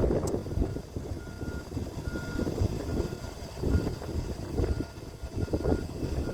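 Wind buffeting the microphone in uneven low gusts, with a faint high beeping tone breaking in and out in short, irregular dashes.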